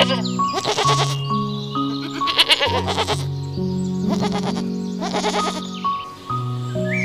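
Goats bleating four times, each bleat short and quavering, over background music with long held notes.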